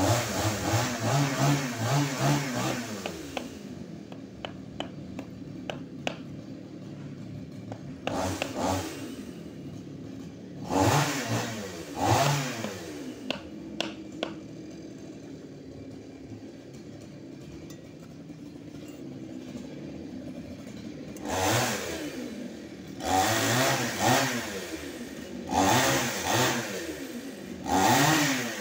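Chainsaw revving up and back down in repeated bursts, about seven times, idling between them.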